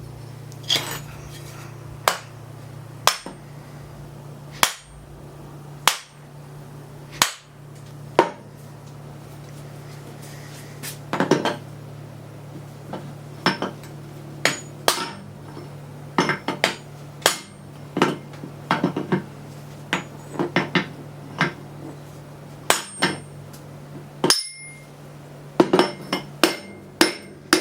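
Hammer blows on the shaft of a Sanden TRS105 scroll AC compressor, sharp metal-on-metal strikes driving a stuck part off it. The blows are spaced about a second apart at first and come in quicker groups in the second half. A steady low hum runs underneath.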